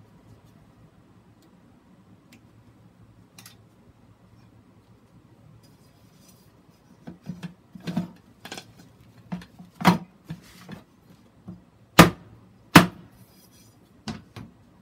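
Sharp knocks and clatters of a hard plastic planting grid and a metal bowl being handled against a plastic bucket. They start about halfway in as about a dozen separate knocks, and the two loudest come close together near the end.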